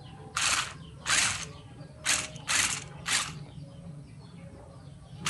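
Toy RC stunt car with roller wheels driven in short jabs: five brief raspy bursts of motor, gear and wheel noise about half a second apart, then a pause near the end.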